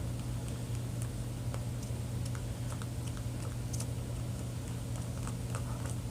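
Mixing tool stirring clear glue tinted with blue food dye in a small container: irregular light clicks and taps of the tool against the container. A steady low hum runs underneath.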